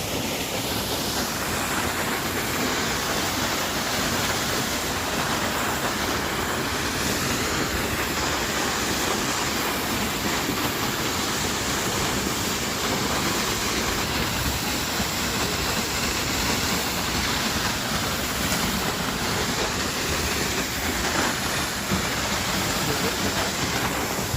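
A waterfall's steady roar: water rushing and falling without a break.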